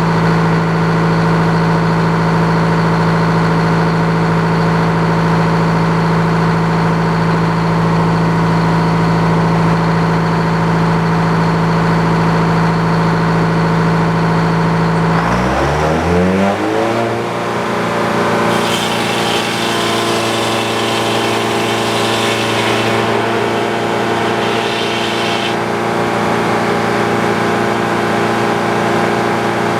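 Engine running an old Frick sawmill, holding a steady speed, then dropping sharply in pitch about halfway through as it comes under load. It settles at the lower speed, and a high hiss runs over it for several seconds.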